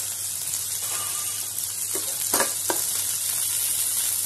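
Hot oil sizzling steadily in a steel pan as a tempering of mustard seeds, cumin, green chillies and curry leaves fries. A steel ladle clicks against the pan three times about two seconds in as it is stirred.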